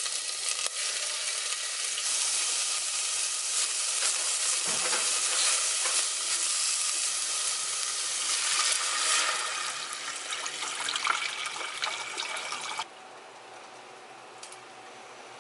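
Diced meat sizzling and crackling as it fries in a hot stainless steel pot. Water is poured in over it about halfway through, and the sizzle cuts off suddenly near the end, leaving a quiet low hiss.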